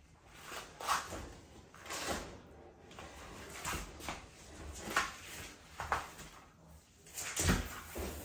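Claws of a black and white tegu scraping and scrabbling on wooden floorboards and boards as the lizard crawls and climbs: six or so separate scrapes and knocks, irregular, the loudest near the end.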